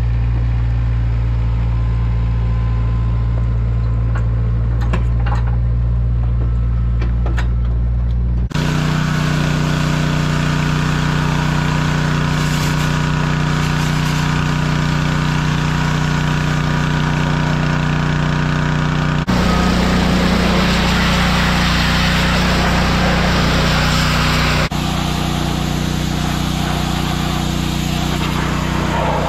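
Gehl skid loader engine running steadily. After a cut about eight seconds in, the engine carries on with a steady hiss laid over it, and the sound jumps twice more at later cuts.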